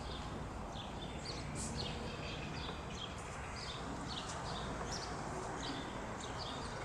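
Small birds chirping, many short high chirps a second, over steady background noise.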